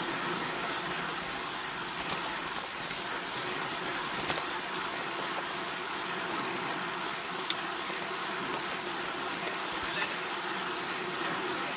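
Steady road noise of a moving vehicle, even and unchanging, with a few faint clicks scattered through it.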